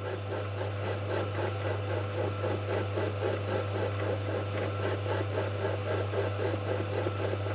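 Small lathe running, with the cutting tool skimming the face of an injector and throwing chips. A steady motor hum lies under a fast, even, repeating cutting sound from the spinning chuck.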